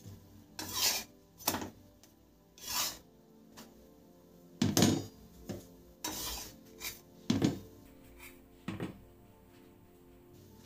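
A spatula scraping and pressing roti dough on a hot tawa (flat griddle) while it roasts: about ten short, irregular scraping strokes, the loudest a little under halfway through.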